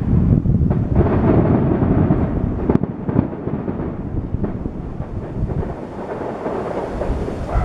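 Fireworks shells bursting, a rolling run of deep booms running into one another, with a sharp crack about three seconds in; the booming eases for a moment near six seconds, then builds again.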